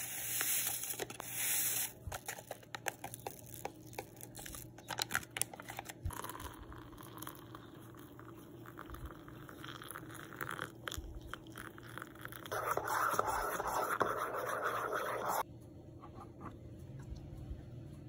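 Instant coffee mix pouring from a stick sachet into a steel-lined mug with a hissing patter, then a metal spoon scraping and clicking as it stirs the coffee in the mug. A louder stretch of stirring noise cuts off suddenly about fifteen seconds in.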